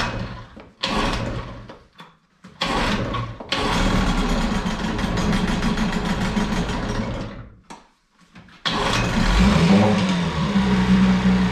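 Evinrude 6 hp two-stroke outboard motor just started after months of sitting: it runs in short fits and stalls twice in the first few seconds, then runs for about four seconds, cuts out, catches again just before the nine-second mark and keeps running steadily.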